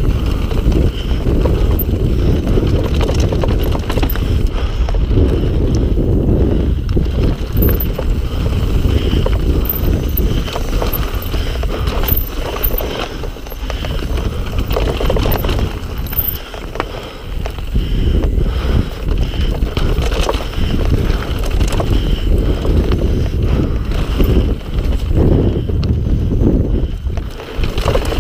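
Mountain bike descending a rocky trail at speed: a continuous rumble of tyres over stones, with short knocks and rattles as the bike hits bumps, and wind buffeting the microphone.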